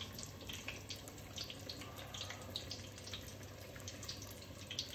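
Battered cod deep-frying in hot oil: a steady sizzle dotted with many small crackles and pops.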